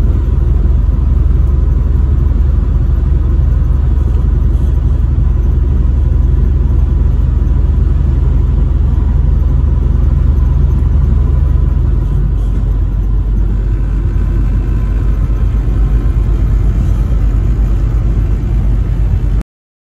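Steady low road and engine rumble inside a vehicle cruising at highway speed. The rumble eases slightly about two-thirds of the way through, then the sound cuts off abruptly just before the end.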